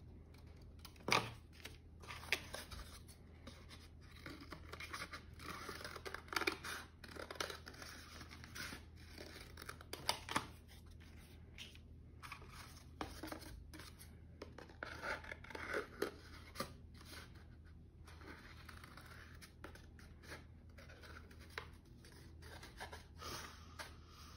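Scissors cutting shapes out of a paper plate: a run of irregular snips and crunches of the stiff paper, some much louder than others.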